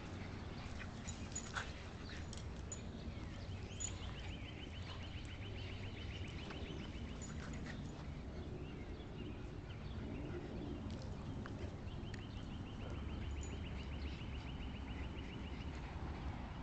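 Small dogs play-fighting on grass, faint sounds of their scuffling and play. A songbird's high, rapid trill is heard twice, each lasting three to four seconds, about three seconds in and again about twelve seconds in.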